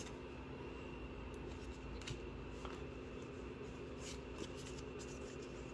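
Faint, soft ticks and rustles of Pokémon trading cards being slid out of a freshly opened booster pack and handled, a few small clicks scattered through, over a steady low hum.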